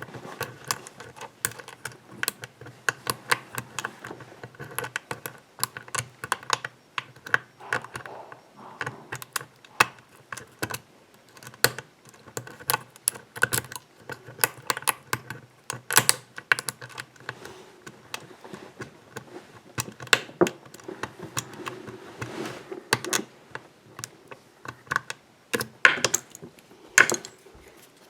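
Lock pick working the pins of a pin-tumbler lock that has spool and serrated pins. It makes a dense run of small irregular metallic clicks and taps as the pins are lifted and set.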